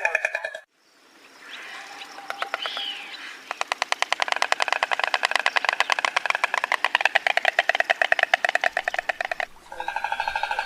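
Stork clattering its bill: a fast, even run of hard clacks, about fifteen a second, lasting some six seconds after a few looser clicks. Brief music at the very start and near the end.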